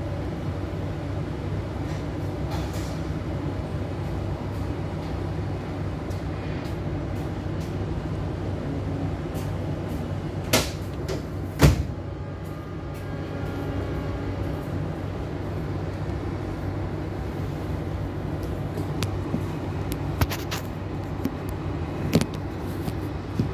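Steady low hum and rumble of a train standing at a station platform, heard from inside the carriage. A couple of sharp knocks come about ten and twelve seconds in, and a few more near the end.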